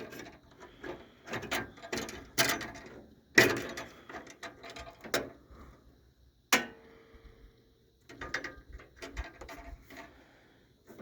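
Irregular clicks, rattles and knocks of a hood latch cable and nearby parts being handled and worked into place in a pickup's engine bay. A sharp metallic knock about six and a half seconds in rings briefly.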